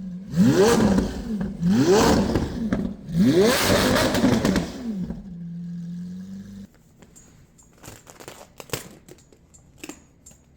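Car engine revved three times, each rev rising in pitch and falling back, then held at a steady idle. A little over halfway through it cuts to a much quieter stretch of scattered light clicks and clanks.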